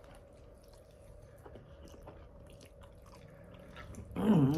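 Quiet chewing of food, with small wet mouth clicks over a faint steady hum; a short burst of voice cuts in near the end.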